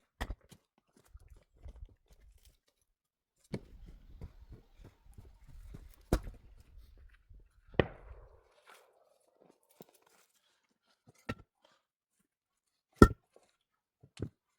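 Irregular knocks, taps and crunching, with a sharp, loud knock about 13 seconds in.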